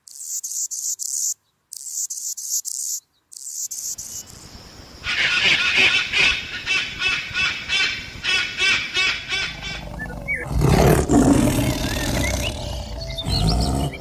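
A string of animal calls: rapid, high-pitched chirping for the first few seconds, then a regular, rhythmic series of calls from about five seconds in, then a loud, low tiger roar from about ten and a half seconds in.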